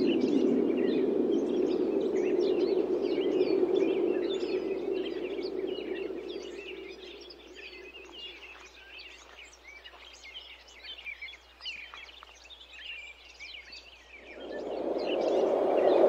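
Wind blowing in gusts, a rushing sound that dies away about halfway through and swells back up near the end, with small birds chirping busily throughout.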